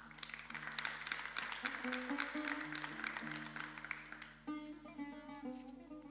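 Audience applauding for about four and a half seconds over a plucked string instrument playing a slow melody. The clapping stops and the instrument carries on alone.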